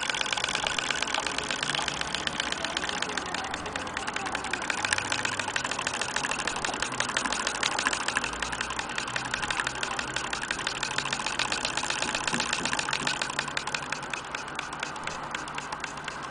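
Antique Willcox & Gibbs chain-stitch sewing machine running, its needle mechanism clattering in fast, even clicks as it stitches through denim. It eases off and goes a little quieter near the end.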